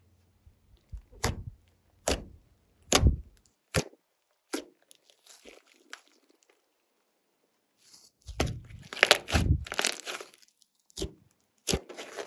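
Glossy slime being pressed and stretched by hand, giving a string of sharp crackling pops about a second apart, then a denser run of crackles and squishes about two-thirds of the way in.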